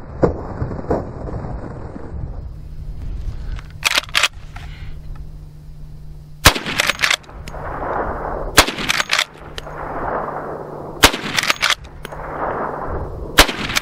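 Marlin lever-action rifle fired four times, a loud crack every two to two and a half seconds. Each crack is followed by a couple of quick sharp clicks and a short rolling echo.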